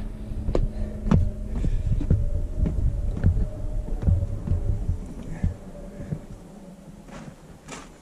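Footsteps on bare granite, heard as dull, irregular low thuds with an occasional scuff or click, and a faint steady hum underneath. The thudding eases off about two-thirds of the way through.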